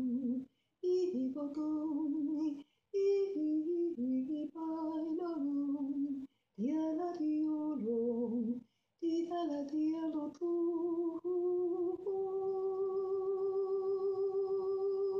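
A woman singing unaccompanied in short melodic phrases broken by brief pauses, then from about twelve seconds in holding one long note with a slight vibrato.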